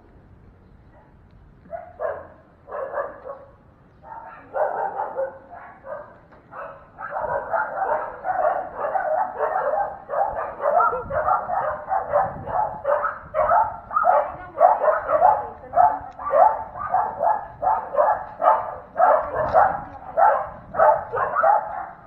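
A dog barking over and over, a few scattered barks at first, then a steady run of about two barks a second from about seven seconds in.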